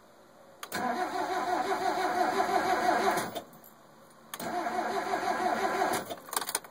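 NA Mazda Miata's four-cylinder engine cranking on the starter without firing, twice: a rhythmic, wavering churn of about two and a half seconds, a pause, then another of about one and a half seconds, both cutting off without the engine catching, the no-start condition. A few sharp clicks follow near the end.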